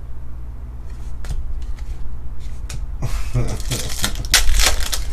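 A few light clicks of cards being handled, then, about three seconds in, a dense crinkling and crackling as a foil trading-card pack wrapper is gripped and torn open.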